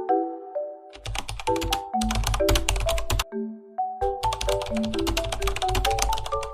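Background music: a bright melody of short stepping notes, joined about a second in by a fast clicking beat with low bass thumps; the beat drops out briefly around three seconds in and returns.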